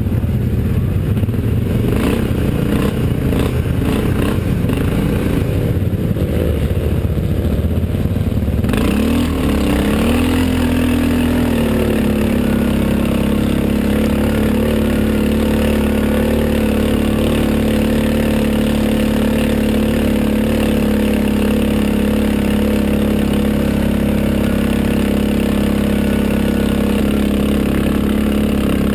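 Quad (ATV) engine heard from on board over a rough dirt track. For the first nine seconds the engine note is uneven and mixed with rattling knocks. Then the revs rise and settle into a steady drone.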